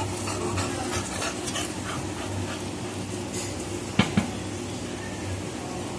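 Faint dog sounds from the puppies' cot over a steady low hum. Two sharp knocks close together about four seconds in.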